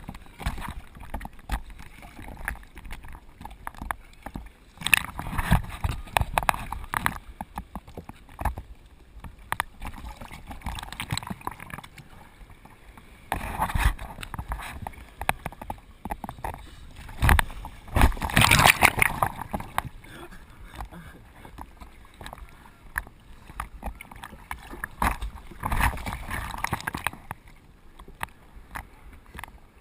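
Ocean surf: waves breaking and washing in, coming in about five rising and falling surges, the loudest a little past halfway.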